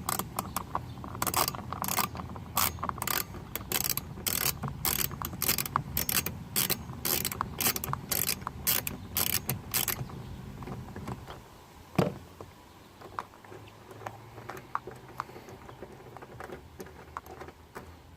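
Socket ratchet clicking through repeated strokes as an 8mm bolt is backed out, for about ten seconds. After that it is quieter, with one sharp knock about two seconds later and a few faint clicks.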